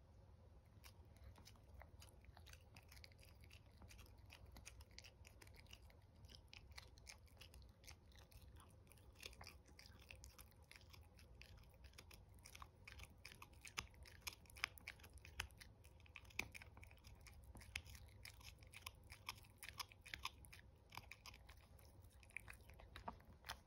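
Chihuahua puppy gnawing a hand-held chew stick: a steady run of small crunching, clicking chews, coming thicker and a little louder from about halfway through.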